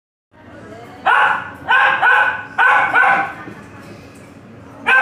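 A puppy yipping: about five short, sharp barks in quick pairs between about one and three and a half seconds in.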